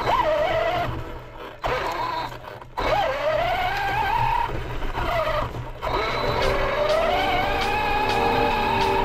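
RC off-road buggy's motor whining, its pitch climbing as it speeds up under throttle. It drops away briefly a few times when the throttle is let off, then winds back up, with tyre and chassis rumble beneath.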